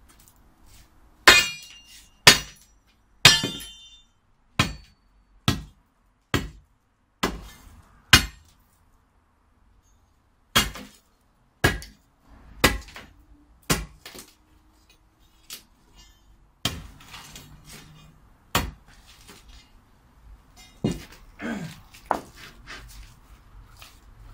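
Steel digging bar driven down again and again into stony ground at the base of a fence post: sharp, clinking strikes about one a second, a run of eight, a short pause, then four more and a few scattered ones near the end.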